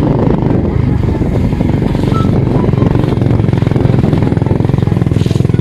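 Underbone motorcycle's engine running steadily as the bike is ridden along a rough dirt track.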